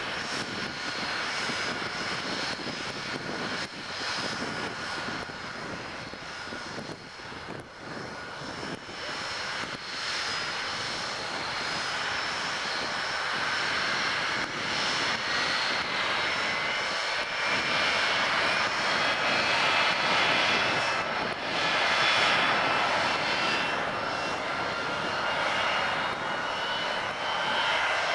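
Hawker Siddeley Nimrod's four Rolls-Royce Spey turbofans being run up on the ground, a steady jet rush with a whine that climbs in pitch over the second half as the engines spool up toward full power and grow louder.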